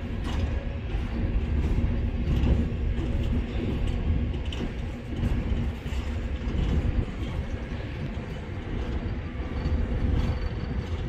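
Open-top hopper cars rolling past on the track: a steady rumble of steel wheels on the rails with scattered clicks and clanks and a faint steady hum underneath.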